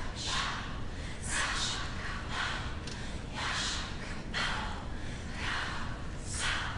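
A large group of dancers breathing audibly together in short, sharp gasps, about one every second, some in quick pairs.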